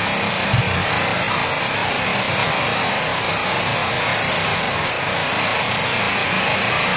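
Steady rain falling: an even hiss, with a brief low thump about half a second in.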